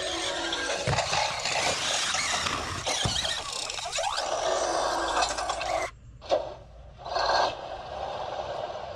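Robosen Optimus Prime Elite robot toy auto-converting: its servo motors whir while its built-in transforming sound effect plays loud and dense for about six seconds. Then it drops, with a short sharp sound and another brief burst near the end.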